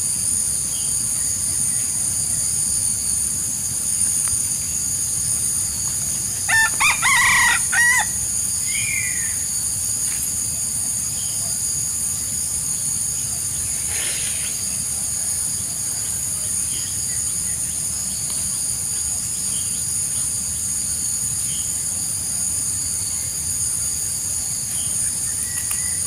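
A wild rooster crows once, a short crow of about a second and a half, some six and a half seconds in. It sounds over a steady high-pitched drone.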